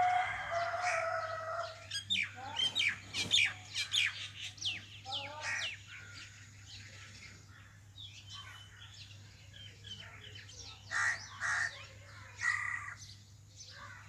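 Common mynas calling: a harsh, grating call at the start, then a run of quick, sharp falling whistled notes, and more harsh calls near the end.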